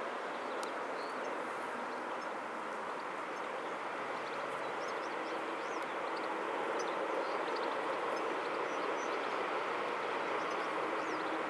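Airbus A330-200 jet engines during the landing roll-out, a steady rushing noise that gets a little louder about halfway through. A few faint bird chirps sound above it.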